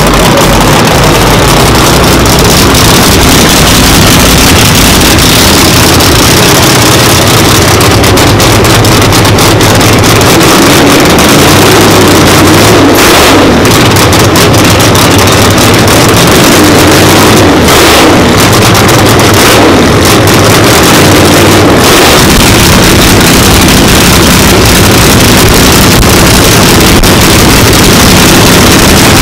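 Race engine of a 1969 Camaro no-prep drag car running loud and steady at low revs, a deep even rumble as the car creeps along.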